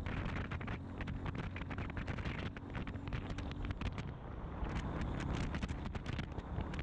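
Motorcycle engine running steadily under way, with wind on the microphone and frequent small clicks and knocks.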